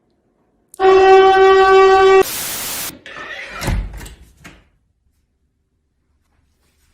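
A loud, steady, horn-like tone held at one pitch for about a second and a half, cut off by a short burst of hiss, then a few knocks and scrapes.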